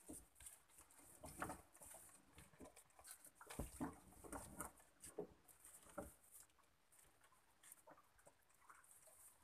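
Faint rustling and pattering of a wet nylon crab gillnet as it is hauled in by hand and shaken, with water dripping and spraying off the mesh. Scattered light clicks and a few soft knocks run through it, the loudest cluster about halfway through.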